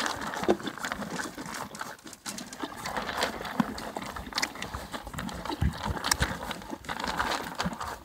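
A horse eating feed pellets from a feed tub: irregular crunching and chewing, with pellets clicking and rattling against the tub as its muzzle works through them.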